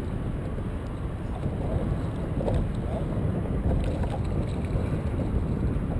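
Wind buffeting the microphone in a steady low rumble, with choppy lake water slapping against the boat's hull.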